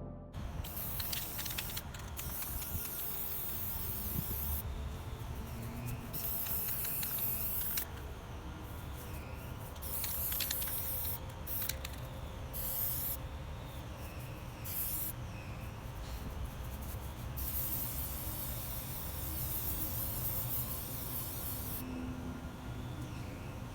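Crafting noise from working cardboard and tape by hand: steady rustling and scraping with repeated short bursts of hiss-like tearing or ripping.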